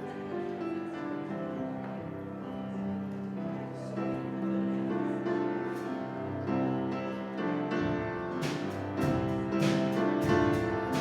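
Instrumental worship music led by piano, holding sustained chords; about eight seconds in a regular beat of sharp strikes joins in, leading into the next song.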